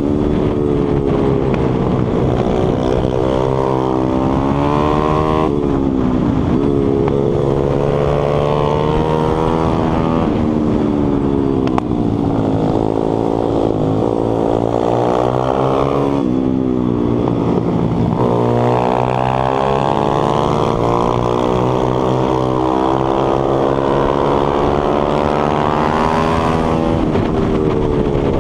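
140cc single-cylinder four-stroke pit bike engine at race pace, heard from on board: the revs climb through the gears on the straights, drop sharply on shifts and off throttle into corners, then rise again, over and over.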